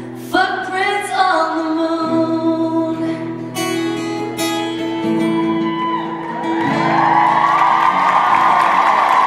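A woman sings over her own acoustic guitar at the close of a live song. About two-thirds of the way through, the audience breaks into cheering and applause, which becomes the loudest sound.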